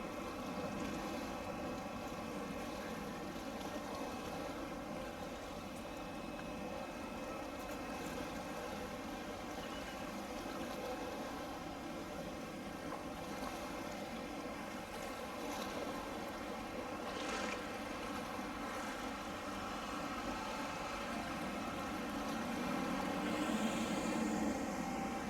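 A boat's engine running steadily over a haze of water and wind noise, with a brief rising and falling tone near the end.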